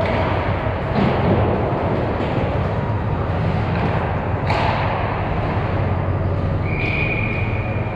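Ice hockey play: two sharp knocks of puck or sticks, about a second in and again midway, over steady rink noise, then a steady high tone near the end.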